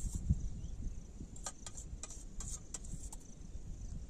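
Wind rumbling on the microphone under a steady high insect hum, with irregular light clicks scattered through it.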